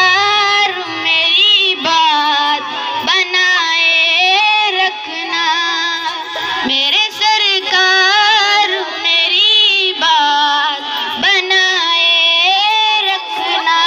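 A boy singing a naat, the Urdu devotional poem in praise of the Prophet, solo and unaccompanied, in long wavering melodic lines with short pauses for breath.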